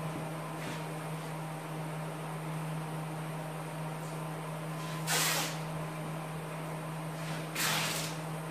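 Steady low hum, with two short rasping bursts about five and seven and a half seconds in, as masking tape is pulled off the roll to mask the windshield of the car body in primer.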